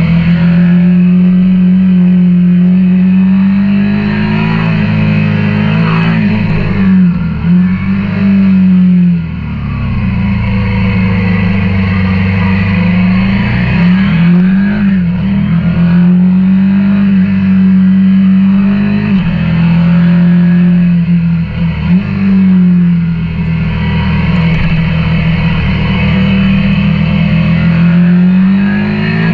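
KTM 890 Duke R parallel-twin engine under way, its note holding steady and then dipping sharply and climbing back several times as the throttle and gears change.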